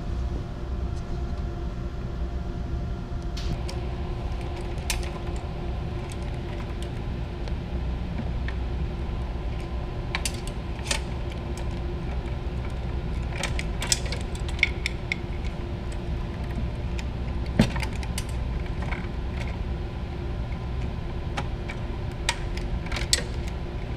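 Scattered sharp clicks and light rattles of wires and crimped terminals as a wiring harness is pulled apart by hand, bunched in the middle with one sharper click after about 17 seconds, over a steady low machinery hum.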